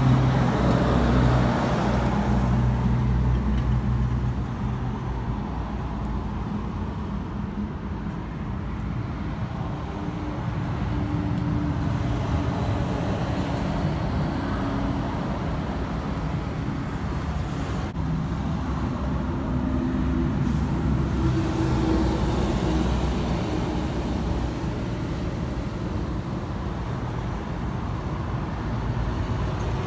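Street traffic: a steady low rumble of motor vehicles, with an engine running close by that is loudest in the first few seconds.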